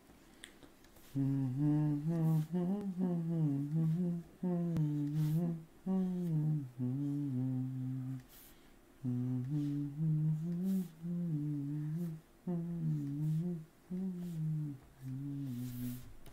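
A man humming a wandering tune in short phrases with brief pauses, starting about a second in.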